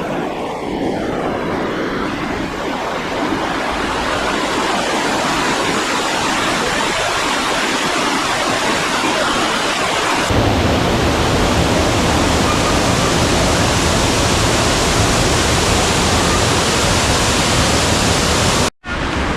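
Garden fountains splashing, a steady rush of falling water. About ten seconds in it cuts to a fuller, deeper rush, and it breaks off for a moment near the end.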